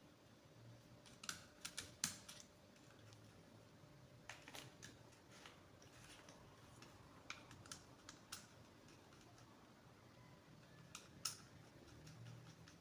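Faint, scattered light clicks and taps in small clusters from hands working a wire into a contactor's terminal.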